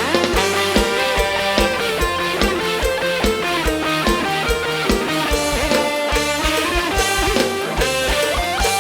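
Instrumental break of a live band: an electric guitar melody over bass and a steady kick drum beat.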